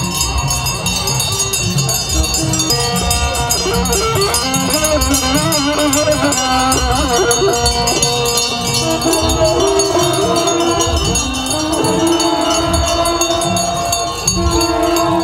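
Church procession music: voices singing a slow, wavering melody over a drum beat, with fast, steady jingling and rattling.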